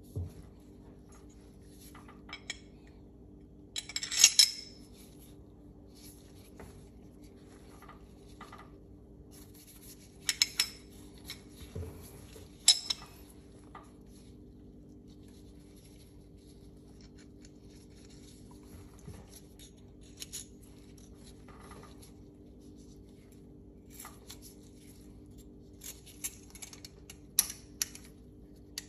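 Small steel parts of a Tanfoglio Stock 2 pistol slide clicking and clinking as they are handled and taken apart by hand, in scattered, irregular clicks with the loudest about four seconds in.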